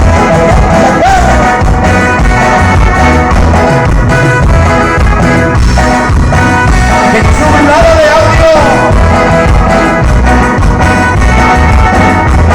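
Loud Latin dance music played over a big sound system during a sound check, with brass and a heavy, steady bass beat.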